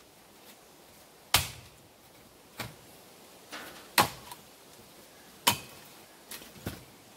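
A double bit axe chopping into a round of wet oak: three hard blows, the last two about a second and a half apart, with lighter knocks of wood between them.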